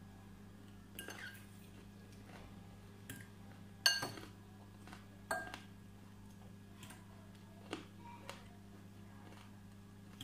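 Metal fork clinking and scraping against a glass salad bowl: about seven separate sharp clinks, the loudest about four seconds in. A steady low hum runs underneath.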